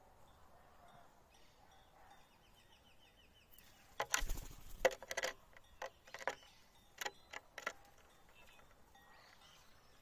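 Bird's wings fluttering and a soft thump as it lands on a wooden plank about four seconds in, followed by a few sharp single clicks. A faint rapid ticking comes just before the landing.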